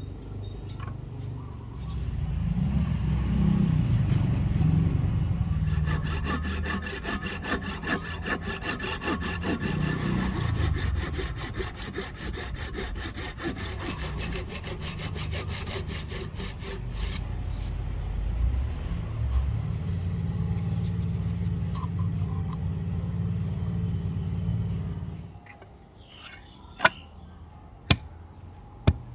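A handsaw cuts across the end grain of a rosewood axe handle in quick, even strokes. A steady low rumble runs under it and drops away about 25 seconds in. A few sharp clicks follow near the end.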